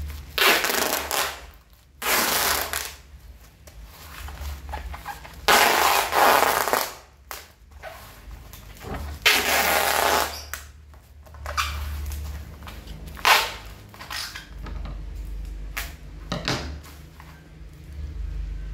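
Brown packing tape being pulled off its roll in long strips and pressed around a plastic-wrapped parcel: about four long tearing rips of a second or so each, then two shorter ones, with rustling and handling of the parcel between them.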